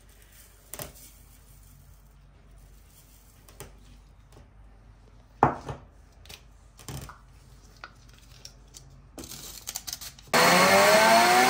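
A few plastic knocks as desiccated coconut is tipped into an electric chopper and its blade assembly is fitted. Near the end the chopper's motor starts and runs loudly, its whine rising in pitch as it spins up, grinding the coconut to powder.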